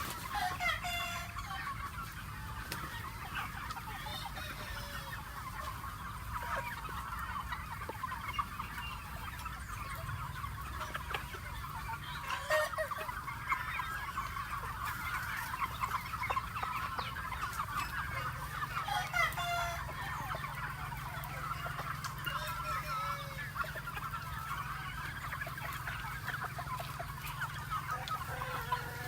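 A flock of free-range chickens clucking continuously. A few times louder, drawn-out calls rise above the clucking.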